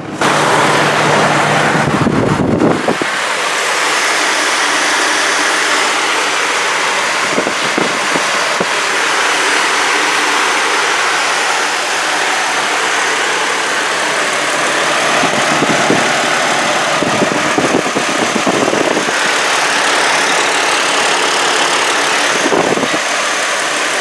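Vortec 4200 4.2-litre inline-six of a 2006 GMC Envoy idling, heard under the open hood as a steady running noise. The engine is warm and, by its scan data, running lean.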